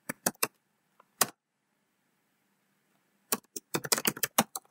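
Computer keyboard keystrokes typing shell commands: a few quick key presses, a single key press a little after a second in, then a pause of about two seconds and a fast run of typing near the end.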